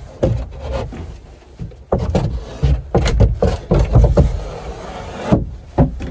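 A cut wooden panel scraping and knocking against a wooden frame as it is forced into a tight fit, with irregular rubs and several sharp knocks.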